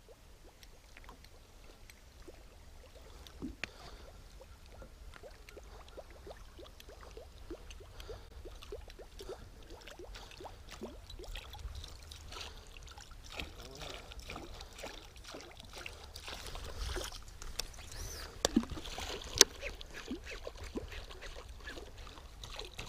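Faint water swishing and small splashes as a musky lure is swept through the water in a figure eight beside the boat, with scattered light clicks and two sharper knocks about three-quarters of the way through.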